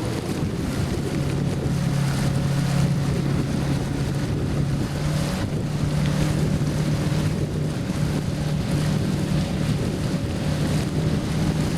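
Yamaha jet ski engine running steadily under way, its hum stepping up slightly in pitch about halfway through, with water rushing and wind buffeting the microphone.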